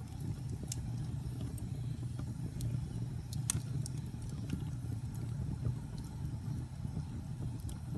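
Wood fire burning: a steady low rumble of flames with scattered sharp crackles and pops, the loudest about three and a half seconds in.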